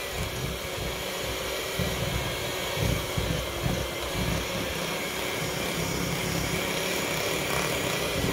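Electric mixer running steadily, beating powdered sugar into a cream cheese and butter icing.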